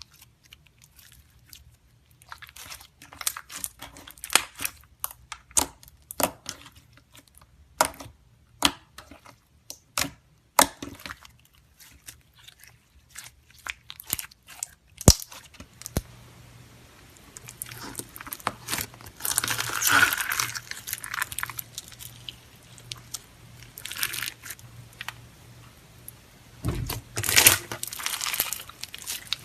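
Clear slime being handled close to the microphone: sharp clicks and pops in the first half, then longer crackly, squelching stretches in the second half as it is pressed and folded.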